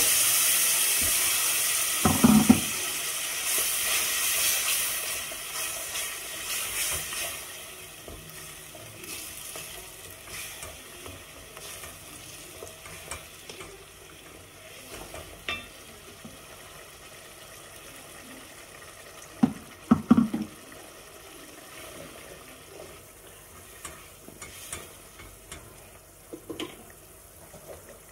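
Tomato and onion sauce sizzling in a metal pot as it is stirred with a wooden spoon. The sizzle is loud at first and dies down over several seconds to a quieter bubbling. The spoon knocks against the pot about two seconds in and again around twenty seconds.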